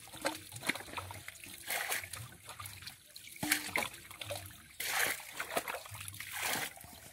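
Shallow muddy water trickling down a narrow channel, with irregular splashes from small snakehead fish (taki) thrashing in it.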